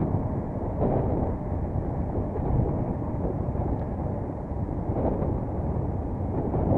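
Wind noise on the microphone: a steady low rumble with a couple of slightly stronger moments.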